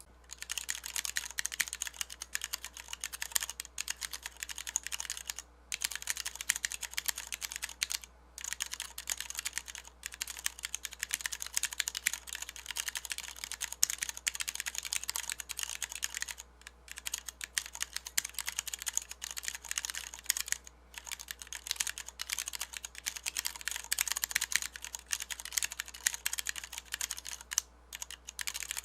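Fast, continuous typing on a Massdrop Planck ortholinear mechanical keyboard with Cherry MX Brown tactile switches, a milled aluminium case, a steel plate and PBT DSA keycaps: a dense patter of key clicks broken by a few short pauses.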